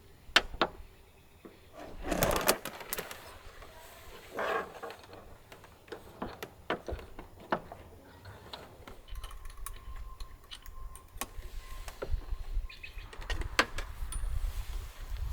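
Scattered clicks and knocks with a couple of short rustles, as of things being handled, over a low rumble that builds in the second half.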